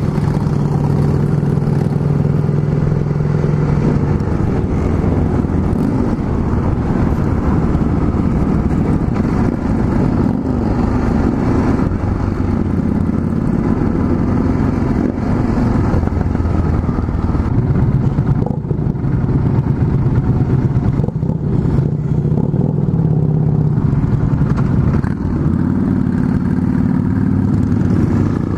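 Yamaha XT660Z Ténéré's single-cylinder four-stroke engine running under way, its note dropping and rising a few times as the rider changes speed, with road and wind noise.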